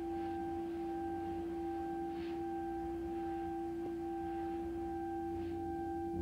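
Looped electronic drone of a few steady, pure held tones over a low hum, with a faint soft swish about every three seconds.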